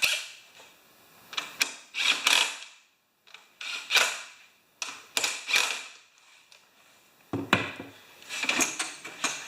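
Hand wrench tightening the small retaining nuts on a lawn mower's recoil starter housing: a series of short metallic strokes with pauses between them.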